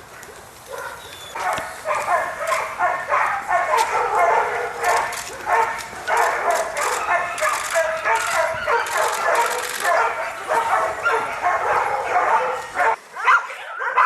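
Many dogs barking and yipping at once in a dense, overlapping chorus. The chorus breaks off briefly near the end, and a drawn-out whine follows.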